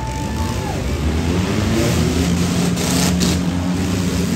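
Several demolition derby cars' engines revving hard and accelerating as the heat gets under way, a steady engine drone underneath with a surge of noise midway.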